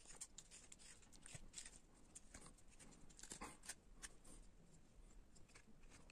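A carving knife slicing thin shavings from linden wood: an irregular run of faint, short cutting strokes.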